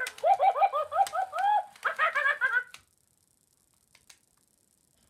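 Hasbro Squawkers McCaw toy parrot giving a quick run of bird-like squawks through its built-in speaker, each call rising and falling in pitch. It stops abruptly about three seconds in.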